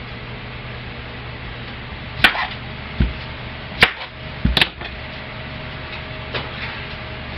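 Kitchen handling noises: a handful of sharp knocks and clicks, a few in quick succession around the middle, over a steady low hum.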